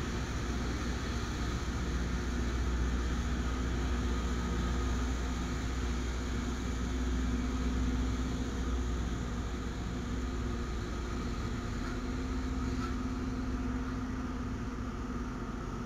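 Double-stack container freight train rolling past with a steady low rumble, its brakes applied.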